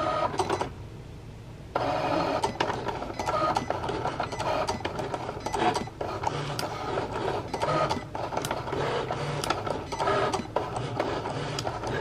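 Cricut electronic cutting machine starting its cut about two seconds in, its motors whirring as the tool head shuttles across and the blade cuts a sheet of iron-on vinyl fed in without a cutting mat.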